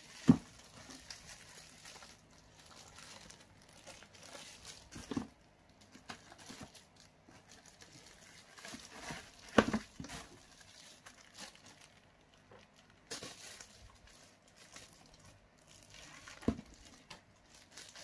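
Plastic wrapping crinkling and rustling as vacuum cleaner parts are handled in a cardboard box, broken by four short sharp knocks, the loudest near the start and about halfway through.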